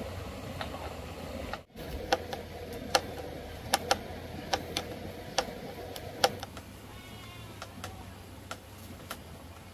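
Irregular sharp taps and clicks from hand tools at work on a frame, about a dozen unevenly spaced, each ringing briefly.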